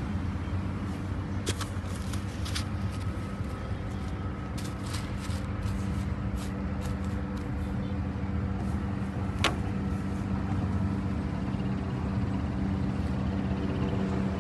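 Steady low hum of road traffic, with scattered light clicks over the first half and one sharper click about nine and a half seconds in.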